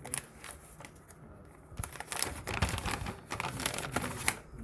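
Packaging being handled and crumpled: a burst of dense crinkling and crackling, busiest in the second half.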